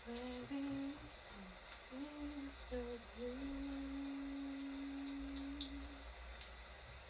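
A woman's voice humming a melody softly: a few short rising and falling notes, then one long held note that stops about six seconds in.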